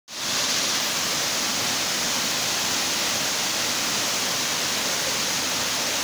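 Kintampo Waterfalls: water pouring down its rock tiers in a steady, hissing rush of falling water.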